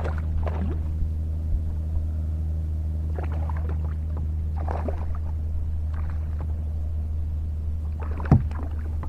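A hooked bass splashing and thrashing at the surface beside a kayak in several short bursts, with a sharp knock near the end as the fish is landed. A steady low hum runs underneath.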